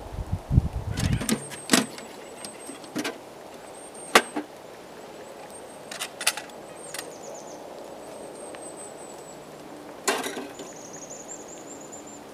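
Scattered sharp metallic clinks and knocks as the grill and parts of a homemade ammo-box wood stove are handled; the sharpest comes about four seconds in and another cluster about ten seconds in. There is a low rumble in the first second or so.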